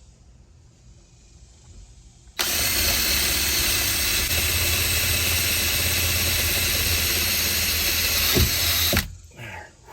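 A cordless power drill running steadily under load for about six and a half seconds, driving a self-tapping screw to fix a furring strip to the van's metal frame. It starts and stops abruptly, and a couple of short knocks follow near the end.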